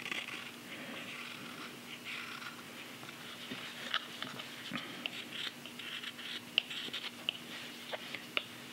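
Carving knife making short, small cuts into the wet green sycamore wood of a belt cup: a soft scraping hiss broken by a string of light clicks as the blade snicks out chips, most frequent in the second half. A faint steady hum sits underneath.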